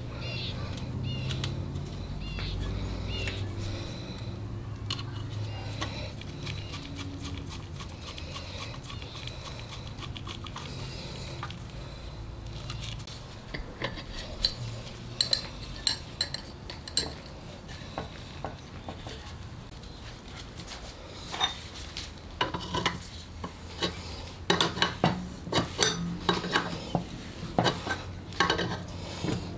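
Small tools and parts clicking, scraping and clinking against the painted housing of a vintage airbrush compressor as it is worked on by hand. A low hum runs under the first half, and sharp ticks and scrapes come thicker in the second half.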